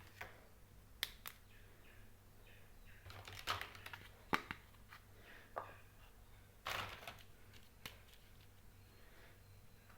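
Small plastic toy kitchen pieces being handled: scattered light clicks and taps, with a couple of brief rustles, the longest about seven seconds in.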